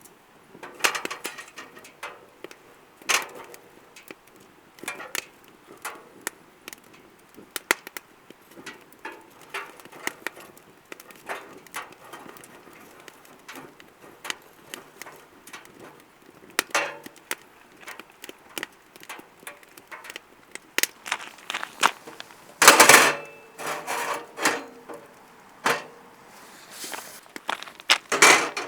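Damp firewood burning in a fire pit, crackling with irregular sharp pops and snaps over a low hiss, with a louder cluster of cracks about three-quarters through and again near the end.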